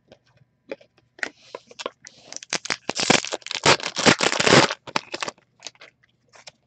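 Trading-card pack wrapper being torn open and crinkled by hand. The loudest, dense crinkling comes from about one to almost five seconds in, among light clicks of the cards being handled.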